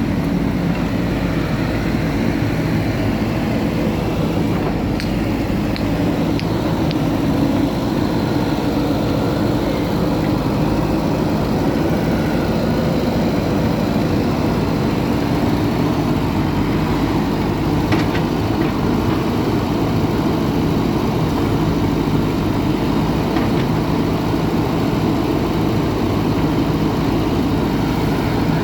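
Diesel engine of heavy construction machinery running steadily at a constant low pitch, with a few faint clicks and knocks.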